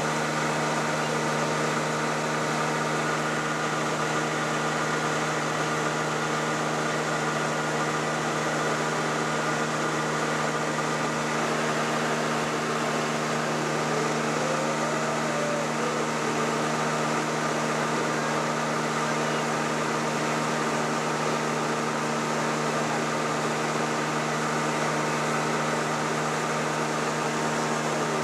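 Boat motor running at a steady speed under way: a constant hum of unchanging pitch under a steady rush of noise.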